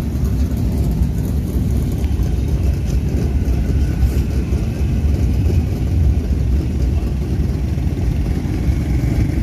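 Several vehicle engines running together in a steady, loud low rumble, from winged 410 sprint cars and the ATVs and utility vehicles moving among them.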